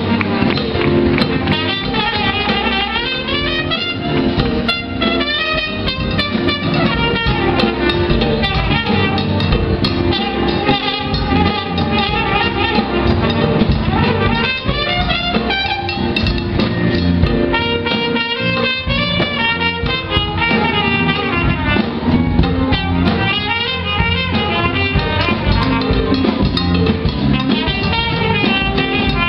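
Small jazz band playing live: saxophones and trumpet over electric bass and drum kit, with fast melodic runs.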